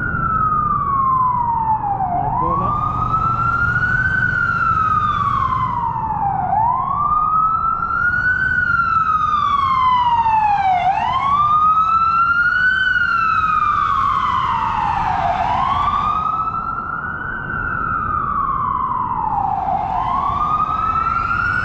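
An emergency vehicle's siren sounding a slow wail. Its pitch rises quickly and falls off more slowly, repeating about every four seconds. A steady low rush runs underneath.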